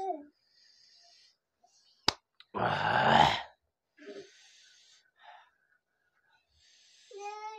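A man breathing hard from the burn of a spicy Jolo chip. A sharp click comes about two seconds in, then a loud, forceful breath out lasting about a second, then quieter breathing. A short pitched cry comes near the end.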